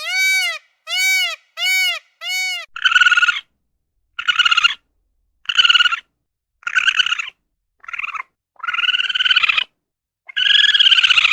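A series of short animal calls separated by silence: four clear, pitched calls that rise and fall, then about eight harsher, raspy calls.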